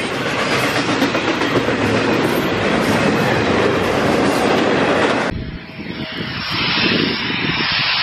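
Double-stack intermodal freight train's well cars rolling past, with a steady rumble and wheel clatter over the rails. About five seconds in the train sound cuts off abruptly, and a quieter stretch of wind buffeting the microphone follows.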